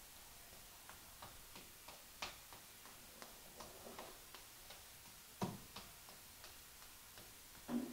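Faint light clicks, about three a second, with a louder knock about five and a half seconds in and another at the end.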